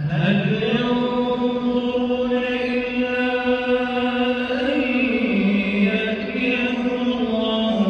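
A man reciting the Quran in the drawn-out melodic style, holding long notes: the pitch steps down about five seconds in and rises again near the end.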